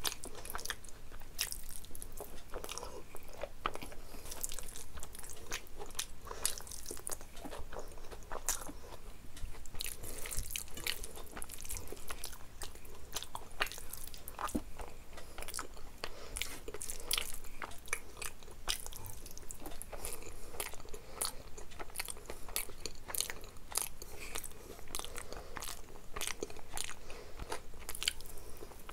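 A person chewing and biting food eaten by hand: wet mouth and lip noises and many quick, irregular clicks, with a bite into a fried chicken lollipop near the end.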